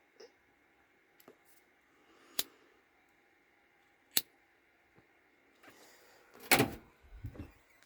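A few sharp, separate clicks and taps, then a louder clatter, like something picked up or set down, about six and a half seconds in.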